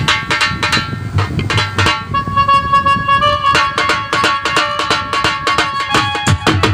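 Live band music: a drum beaten with sticks in quick, dense strokes under an electronic keyboard melody. About two seconds in, one note is held for a second or so before the strokes crowd back in.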